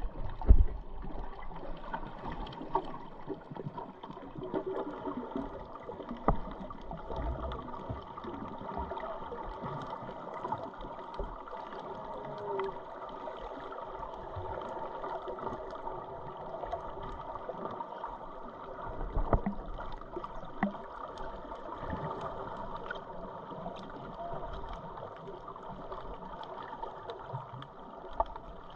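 Muffled sloshing and gurgling of water heard through an underwater camera while snorkeling, with scattered small clicks. Occasional knocks sound against the housing or the water, the loudest about half a second in and a couple around nineteen to twenty seconds in.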